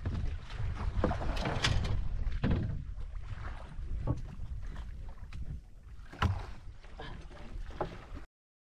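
Wind and water noise aboard a small fishing boat at sea, with scattered knocks and clicks. The sound cuts off abruptly near the end.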